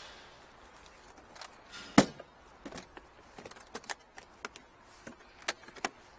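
Aluminium carrying case of a pipe-inspection camera kit being shut: its lid comes down with a loud clack about two seconds in, followed by a series of short metal clicks and taps as the case is latched and handled.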